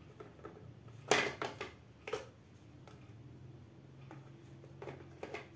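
Plastic clicks and knocks from a metal detector's control box being handled and fitted onto its shaft: one sharp click about a second in, then a few lighter ones, over a faint steady hum.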